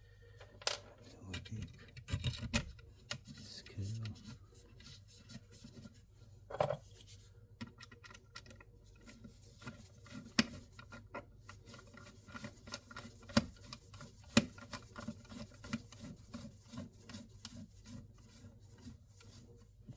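Irregular small clicks, taps and scraping as stiff electrical cables and a smart switch module are pushed and worked into a wall socket back box by gloved hands, with a few sharper clicks of plastic and metal parts knocking together.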